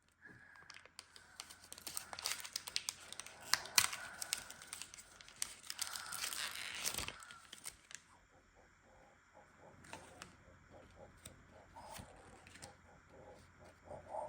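Foil wrapper of a Pokémon card booster pack being torn open and crinkled, loudest in the first half, then quieter crinkling for the rest.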